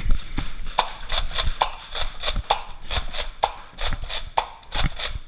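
Nerf battle sounds: a rapid, irregular run of plastic clicks and knocks from Nerf blasters being worked and fired, with a sharper click about once a second and low thumps from players moving.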